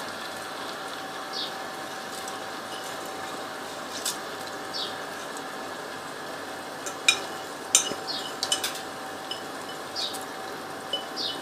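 Soaked rice being added to a pot of water and stirred in: a metal spoon clinks sharply against the pot several times, mostly in the second half, over a steady hiss.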